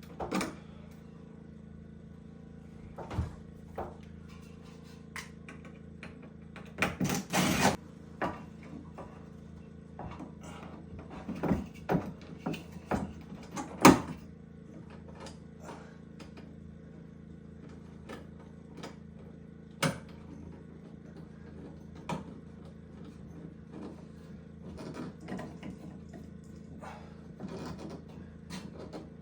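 Irregular knocks, clicks and clatter of work in a small room, with a short scraping rush about seven seconds in and the loudest knock about fourteen seconds in, over a steady low hum.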